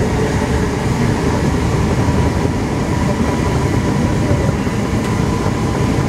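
Alstom NS-16 metro train running at speed, heard from inside the driver's cab: a steady rumble with a faint, even whine over it.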